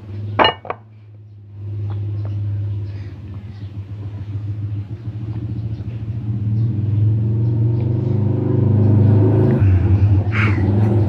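A motor vehicle's engine running nearby, a steady low hum that grows louder over several seconds. A couple of sharp knocks come about half a second in.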